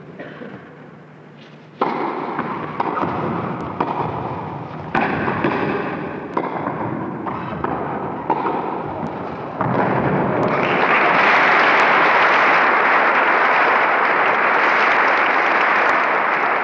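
Tennis rally: a racquet strikes the ball about once a second. About ten seconds in, the crowd breaks into steady applause as the point ends.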